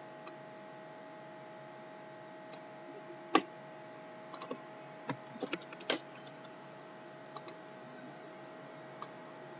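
Computer mouse clicking irregularly, about a dozen sharp clicks with a cluster in the middle, over a faint steady electrical hum.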